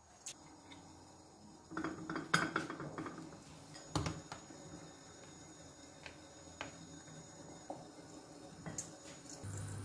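A metal fork clinking and scraping against a plastic tub and small ceramic dishes while olives are served. A cluster of clatter comes about two seconds in, a sharp clink about four seconds in, then a few lighter taps.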